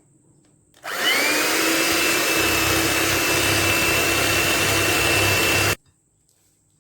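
Electric beater switched on about a second in, its whine quickly rising to speed, then running steadily while beating eggs, sugar and oil for cake batter, and cut off abruptly near the end.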